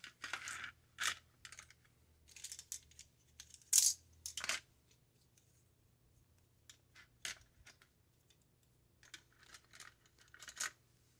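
Plastic hair claw clips clicking and clattering as they are handled and set into a container. The sound comes as scattered clicks and rustles in small clusters, with a quiet stretch in the middle.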